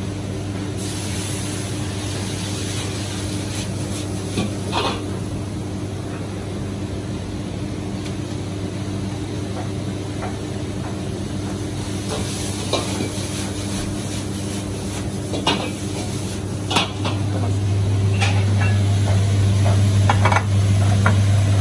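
Noodles sizzling in a wok over a gas wok burner, with a metal ladle stirring and clinking against the wok a handful of times. A steady low hum from the wok station underlies it, growing louder about three-quarters of the way through.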